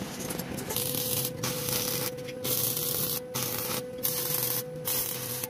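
Stick arc welding on thin steel rod: a hiss that starts about a second in and cuts off and restarts several times as the arc is struck and broken.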